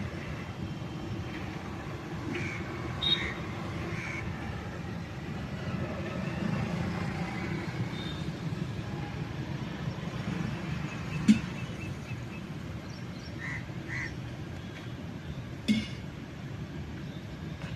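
Steady background rumble, with a few sharp knocks and scattered short high-pitched calls.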